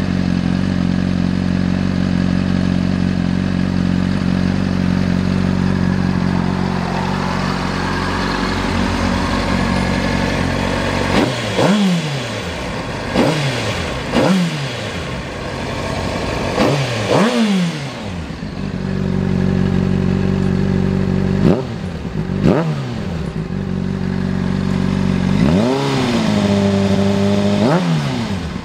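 Honda CBR600RR inline-four idling steadily through a Yoshimura RS-5 slip-on muffler with its noise reduction insert fitted, then free-revved in neutral. There are about eight quick throttle blips, each rising sharply and dropping back to idle, with a longer rev held for a couple of seconds near the end.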